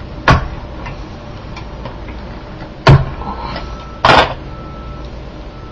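Three sharp clunks of kitchenware being handled around a stew pot, the last one slightly longer, over a low steady kitchen background.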